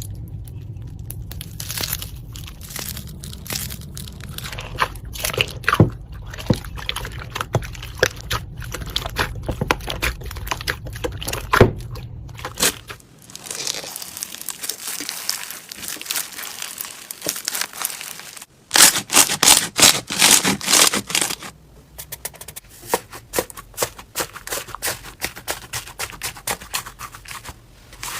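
Slime being squeezed and worked, giving a dense run of crackles and pops, typical of crunchy slime. The crackling is louder and faster for a couple of seconds just past the middle.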